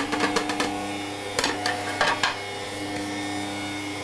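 Electric stand mixer running at a steady hum as it mixes muffin batter, with several sharp clicks and knocks in the first two and a half seconds.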